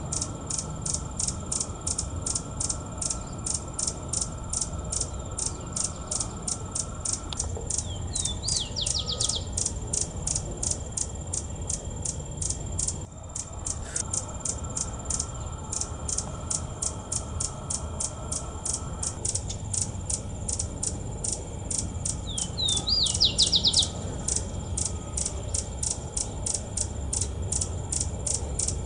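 Outdoor nature ambience: a steady high-pitched insect chirping, pulsing several times a second, with short bird calls twice.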